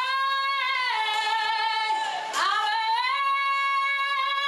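A young girl's unaccompanied singing voice holding long vowel tones in a breath-support vocal warm-up. The pitch sinks slightly, dips about halfway through, then a new tone glides up and is held.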